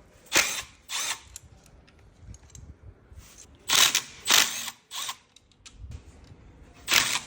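Handheld power tool, such as a cordless drill or electric ratchet, run in six short bursts that come in three pairs, undoing fasteners on an engine being stripped down.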